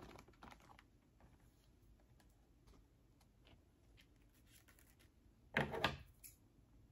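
Faint small clicks and rustles of hands working fishing line through a cardboard coffee box, with a short louder rustle of two quick pulses about five and a half seconds in.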